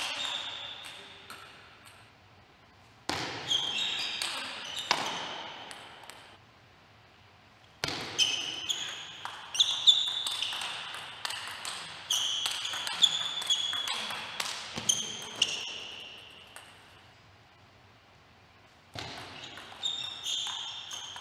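Table tennis rallies: the plastic ball clicking in quick alternation off the rubber of the bats and the table top, each hit ringing briefly. The hits come in several runs, with short quiet pauses between the rallies.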